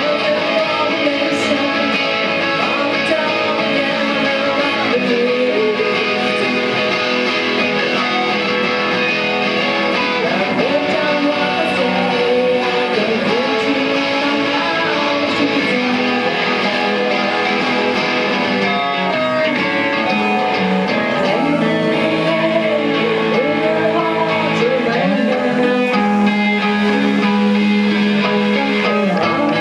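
Live band music: electric guitars strummed loudly.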